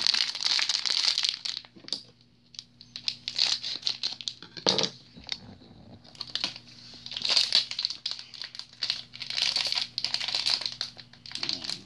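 Shiny plastic wrapper of a Pikmi Pops toy packet being crinkled and pulled open by hand, in several bursts of crackly rustling with short pauses between them. There is a brief knock about halfway through.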